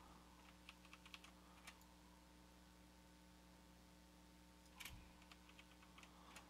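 Faint clicking of a computer keyboard and mouse in two short clusters, about a second in and again from about five seconds in, the sharpest click at the start of the second cluster, over a low steady hum.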